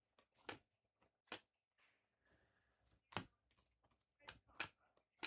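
Faint, quiet handling of trading cards: about six short swishes and clicks as cards are slid and flipped one after another.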